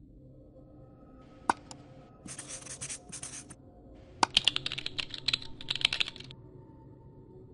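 Computer keyboard typing in quick, uneven keystrokes for about two seconds, starting a little past the middle. Before it come a single sharp click and two short scratchy bursts of marker-on-surface scribbling.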